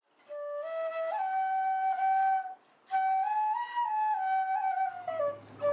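Background music: a solo flute playing a slow melody of long held notes, in two phrases with a brief pause between them.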